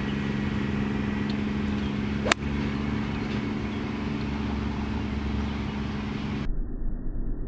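A single sharp crack of a 7-iron striking a golf ball, about two seconds in, over a steady low mechanical hum like an idling engine.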